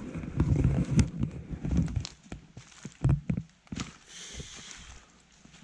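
Footsteps through dry leaf litter with the knocks and rubbing of a handheld camera, heaviest in the first two seconds, then one more thump about three seconds in before it quietens.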